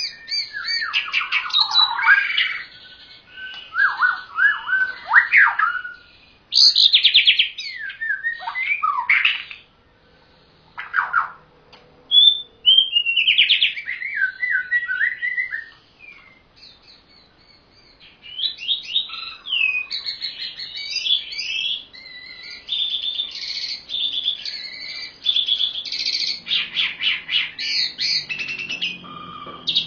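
White-rumped shama and Javan pied starling singing: loud, varied phrases of sweeping whistles, rapid trills and harsh chattering notes, with short pauses between bursts. Faint low music starts just before the end.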